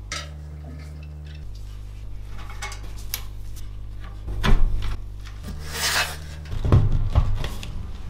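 Scraping and clicking of an Intel stock CPU cooler being handled and pressed down onto a motherboard inside a steel PC case. There are sharp knocks about four and a half seconds in and a quick run of clicks near the end.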